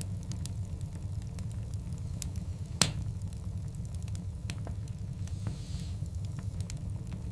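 Wood fire of large burning logs crackling, with scattered sharp pops over a steady low rumble of the flames. One loud pop comes about three seconds in, and a brief faint hiss follows a couple of seconds later.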